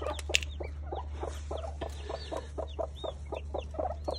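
A broody hen clucking low and fast, about five clucks a second, the defensive warning of a mother guarding her hatchlings. Newly hatched poults peep high above it with short rising-and-falling chirps.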